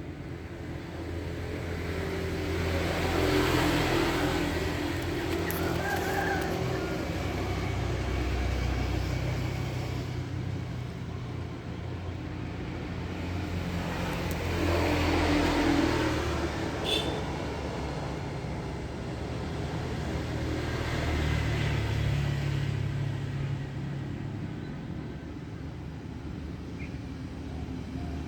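Vehicles passing one after another, each swelling and fading over a few seconds, over a steady low engine hum.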